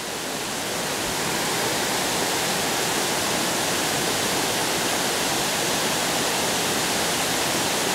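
Water pouring over an old mill dam's spillway: a steady, even rush of falling water.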